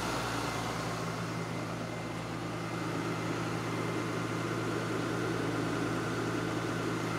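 Self-propelled crop sprayer's engine idling steadily, a low even hum.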